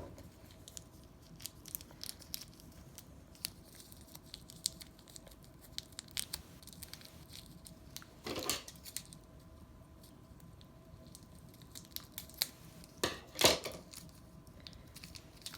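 Hands rummaging through packaging: scattered small clicks and crinkles, with two louder rustles, about eight seconds in and again around thirteen seconds.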